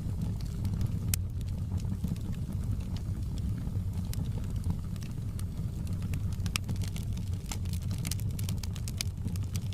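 Wood fire burning in a fireplace: a steady low rumble of flames with frequent sharp crackles and pops from the burning logs, the crackling thickening in the second half.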